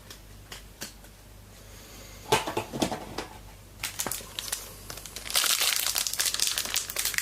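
Trading card pack wrapper being crinkled and torn open: a few light clicks and a short rustle first, then dense, louder crinkling from about five seconds in.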